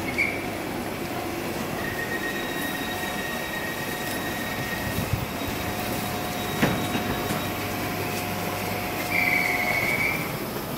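Class 321 electric multiple unit at the platform as it gets ready to leave. Its equipment hums with steady tones, there is a sharp click about seven seconds in, and a short high beep sounds near the end.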